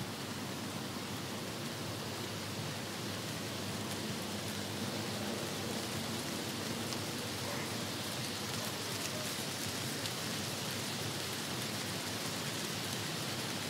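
Steady outdoor wind noise by a lake, with faint light crackles of dry leaves rustling.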